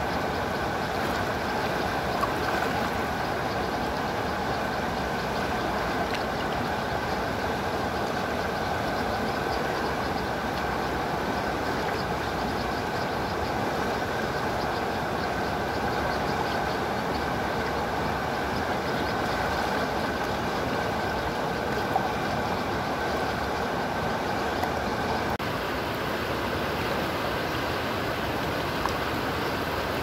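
Shallow river water rushing steadily over rocks and small rapids, an even, unbroken rushing.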